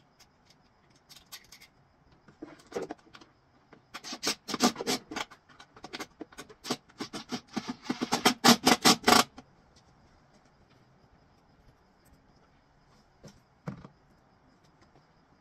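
Quick, irregular runs of clicks and rattles from hands and tools working on the winch wiring behind a truck's grille, loudest in two spells in the middle, followed by a single knock near the end.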